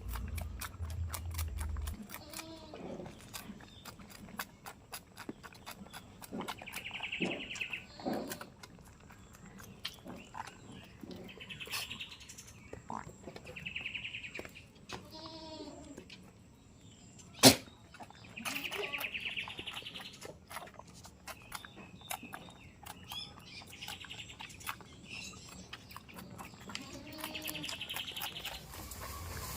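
Goats in a pen, with many short clicks and crunches and now and then a low bleat. A bird chirps every few seconds. One sharp knock stands out about halfway through.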